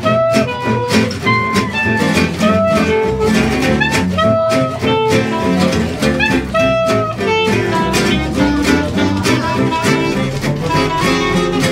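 Small swing jazz ensemble playing: a clarinet carries a melody of held, sliding notes over rhythmically strummed acoustic guitars and a plucked double bass.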